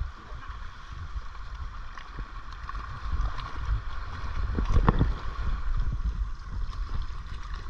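Sea water sloshing and splashing around someone wading out, with wind rumbling on the microphone; a little louder about five seconds in.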